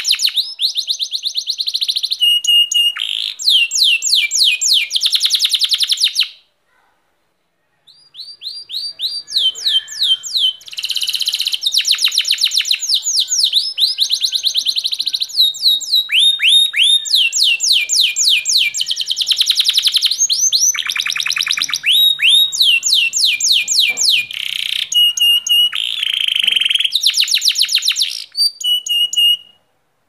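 Domestic canary singing a long, loud song of rapid trills and rolls, fast repeated notes and sweeping whistles. The song breaks off for about a second and a half after about six seconds, then runs on and stops just before the end.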